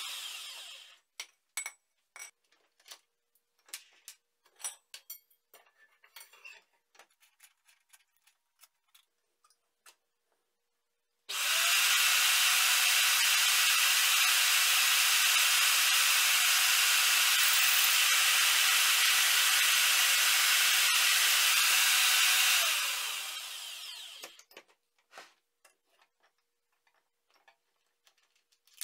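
Clicks and knocks as a metal tube is handled and clamped in a pipe vise. After a short pause an Evolution magnetic drill's motor spins up, runs steadily for about eleven seconds drilling into the tube, then winds down, followed by more clicks and taps.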